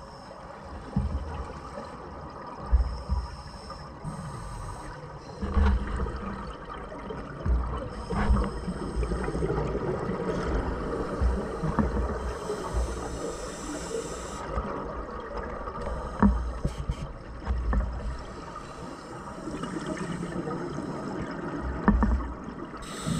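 Scuba diver's exhaled bubbles and regulator breathing heard underwater: muffled gurgling with low bursts of bubbles every few seconds, and a few sharp clicks.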